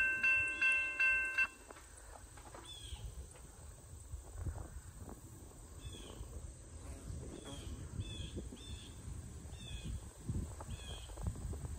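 Railroad grade-crossing warning bell ringing about three strikes a second, then stopping about a second and a half in with the gates down. After it there is a faint low rumble and a bird chirping briefly about seven times.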